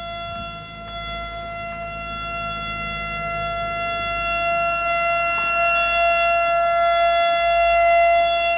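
Outdoor nuclear emergency warning siren sounding one steady, unwavering tone during a test of the warning system. It grows gradually louder over several seconds.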